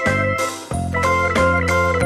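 Background music: an instrumental track with guitar over a steady bass beat.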